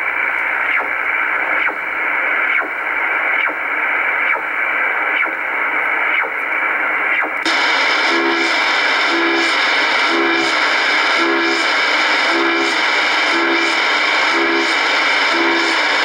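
CODAR coastal HF ocean radar signal heard on a shortwave receiver near 4.5 MHz: a sweep repeating about once a second over steady radio hiss. About halfway through, the receiver switches from single sideband to AM and the sound turns brighter and fuller, with a pulsing tone on each sweep.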